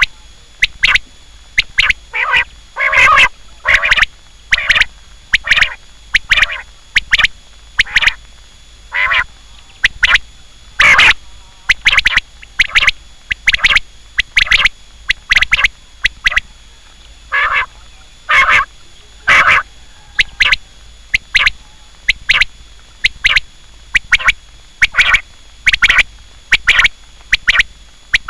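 Quail calling over and over: short, sharp calls, often in quick groups of two or three, about one to two calls a second, with a faint steady high whine underneath.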